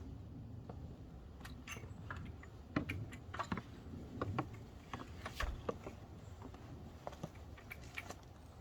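Scattered light clicks and knocks over a low rumble: someone moving about and handling things.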